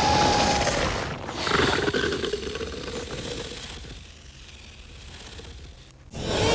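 Alien xenomorph creature sound effects: a loud rasping screech that starts suddenly, then a second hissing, roar-like call about a second and a half in that fades away. Near the end another loud burst begins.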